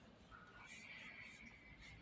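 Near silence: faint room tone, with a thin steady high tone beginning a little under a second in.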